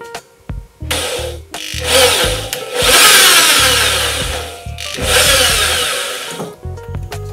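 Corded electric drill boring pilot holes into plywood through a metal drawer slide's mounting holes. It runs in bursts: a short one about a second in, then two longer runs around three and five seconds in. Background music plays under it.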